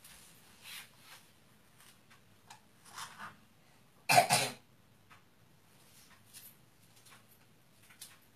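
A person coughing, a short double burst about four seconds in, with a few faint clicks and rustles around it.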